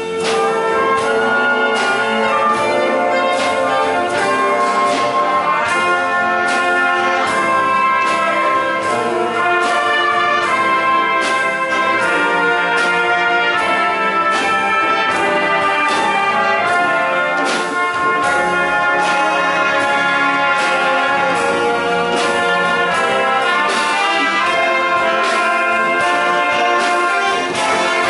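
Live wind band playing: tubas, saxophones, trumpets, flutes and other brass and woodwinds over a drum kit, with a steady beat.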